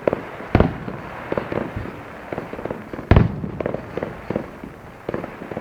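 Fireworks bursting overhead: an irregular run of booms and crackling pops, with two louder booms about half a second in and about three seconds in.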